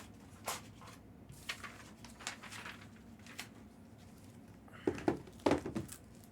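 Trading-card boxes and packs being handled and opened on a table: scattered light rustles and clicks, then a louder cluster of quick taps and crinkles about five seconds in.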